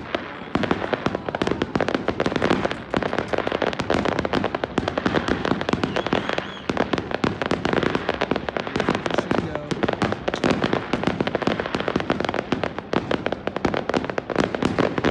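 Fireworks display finale: a dense, continuous barrage of rapid bangs, many shells bursting every second with no pause between them.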